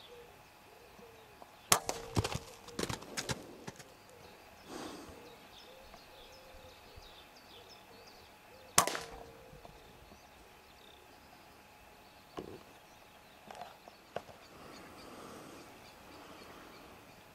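Weihrauch HW100 pre-charged air rifle firing twice, about seven seconds apart, each shot a single sharp crack; the first is followed by a quick run of smaller clicks and knocks. A few fainter knocks come later.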